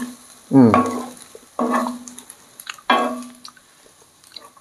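Wooden spatula stirring and tossing spaghetti in a ceramic-coated frying pan on a gas stove. It gives three short squeaks with a pitch to them, about a second apart, each starting sharply and fading quickly.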